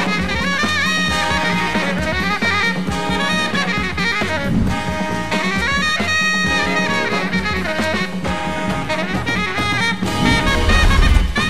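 Background music: an upbeat jazz or swing-style tune with brass or saxophone lines over a steady drum beat, getting a little louder near the end.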